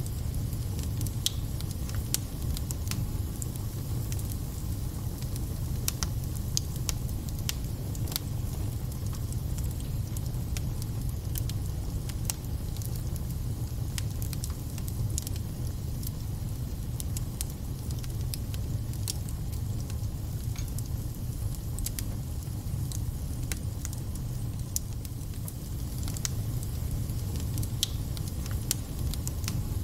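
Wood fire burning in a fireplace: a steady low rumble of flame with scattered sharp crackles and spits from the burning logs.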